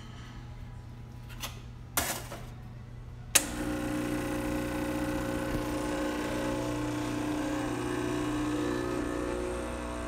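Quickmill Silvano espresso machine's vibration pump switching on with a click about three seconds in and then running steadily as a shot is pulled through the locked-in portafilter, pressure building to almost 9 bars. Before it, a low hum and a brief clunk about two seconds in.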